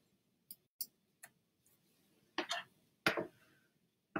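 Scattered light clicks and taps: three faint clicks in the first second and a half, then three louder taps in the second half.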